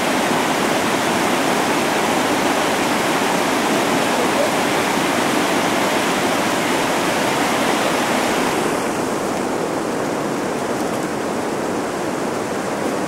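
River rapids rushing steadily, an even wash of whitewater. About eight and a half seconds in, the sound turns duller and slightly quieter as the high hiss drops away.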